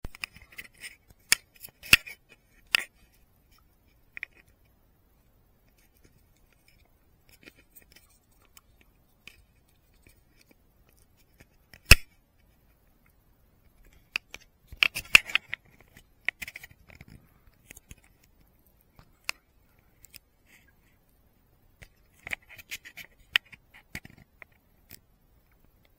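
Handling noise on a hand-held action camera: scattered sharp clicks and short scratchy rubbing close to its microphone, with quiet gaps between. The sharpest clicks come about 2 s, 12 s and 15 s in, and there is a cluster of rubbing near the end.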